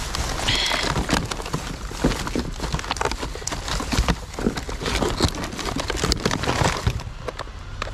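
Rustling and clattering of bags and packages of discarded food being rummaged through and moved, with many irregular knocks.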